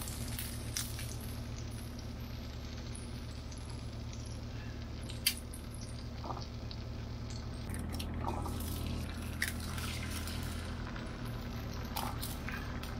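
Bacon fat sizzling faintly in an electric skillet, with metal tongs clicking against the pan now and then, one sharp click about five seconds in. Near the end eggs are cracked into the hot pan. A steady low hum runs underneath.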